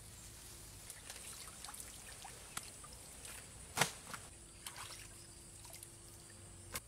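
Water trickling, dripping and splashing as a person steps and moves about in a shallow stone-lined pond, with one loud sharp splash about four seconds in.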